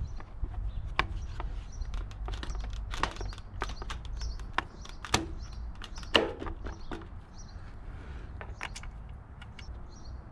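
Plastic motorcycle body panel being fitted back into place: an irregular series of sharp clicks and knocks as the plastic is pressed and snapped home, the two loudest about five and six seconds in.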